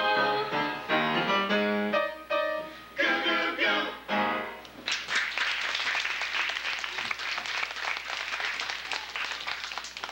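A song sung on stage with instrumental accompaniment, ending with held notes about four and a half seconds in; then audience applause, the clapping running on to the end.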